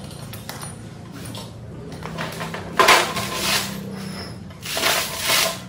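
Steel parts of a homemade car frame and its wheel-and-suspension assembly being handled: a sudden loud metallic clank about three seconds in that rattles on briefly, then a second clatter near the end.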